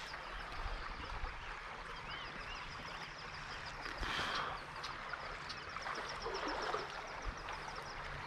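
Small creek trickling and running in a steady hiss, with a fast, even row of high ticks throughout and a couple of short chirps about two seconds in. A brief louder rush comes about four seconds in.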